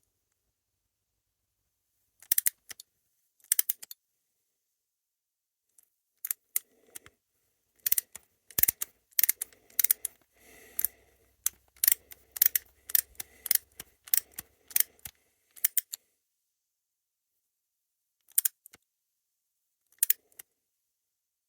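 Small metal hand tools and parts clicking and clinking as they are handled, in scattered short bursts, busiest in the middle with quiet gaps between.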